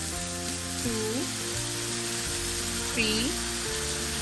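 Chicken, carrots and mushrooms sizzling steadily in a hot pan on high heat as dark soy sauce is spooned in, with background music underneath.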